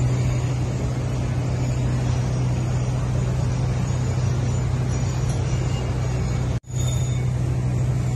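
A steady low mechanical hum, like a motor or engine running, under a constant hiss. The sound cuts out for an instant about six and a half seconds in, then carries on unchanged.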